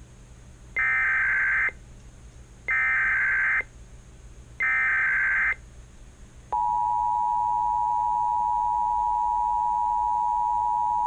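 Emergency Alert System signal from an EAS encoder: three bursts of warbling digital SAME header data, each about a second long, then about six and a half seconds in the steady two-tone EAS attention signal starts and holds. It marks the start of a relayed tornado warning.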